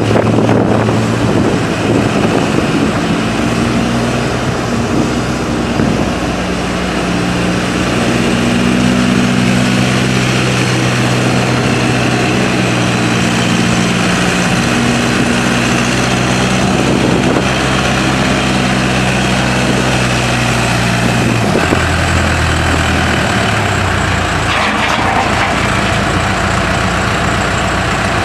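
Case 580M Series II backhoe's four-cylinder diesel engine running steadily, its engine speed shifting a few times and dropping about three quarters of the way through.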